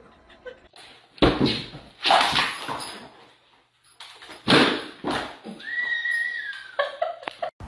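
An animal's calls: three harsh, noisy bursts, then one short high-pitched whine about six seconds in.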